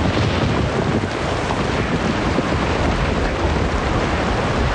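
Steady hurricane storm noise: wind and heavy rain over a continuous low rumble.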